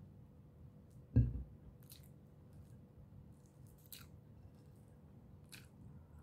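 A person chewing chicken tocino and rice close to the microphone, with a few short wet mouth clicks. One dull low thump about a second in is the loudest sound.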